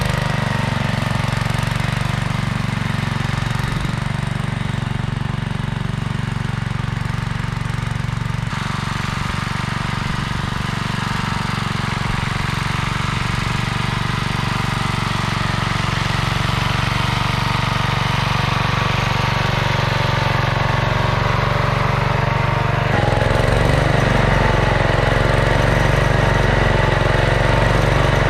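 Simplicity 2010 garden tractor's engine running steadily under load as it pulls a cultivator through dry soil. About twenty-three seconds in it gets louder, heard up close.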